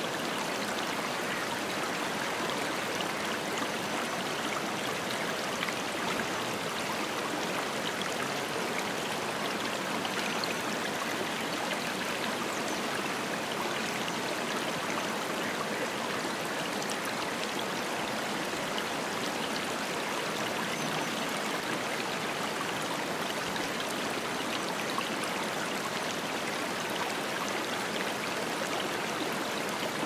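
Fast-flowing river rushing over stones: a steady, even sound of running water.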